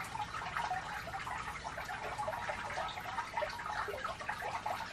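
Water trickling and splashing steadily from a small fountain in a memorial grove, driven by a pump.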